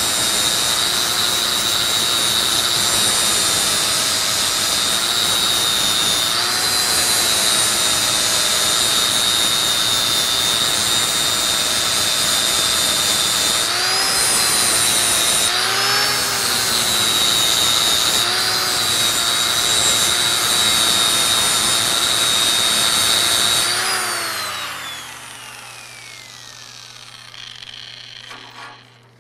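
Electric angle grinder with a flap disc sanding welded-over holes flush on a metal bar. Its motor whine sags in pitch several times as it is pressed into the work. About 24 seconds in it is switched off and winds down.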